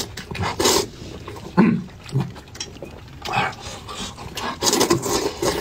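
A person loudly slurping and sucking up wide flat noodle strips (banmian), in several noisy slurps with wet eating sounds between them.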